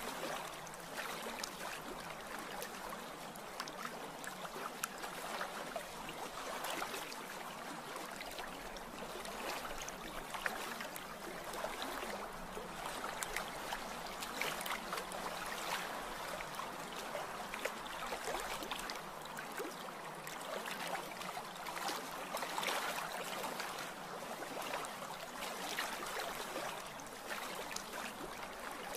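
Steady running, lapping water with small trickles and splashes, a continuous water recording.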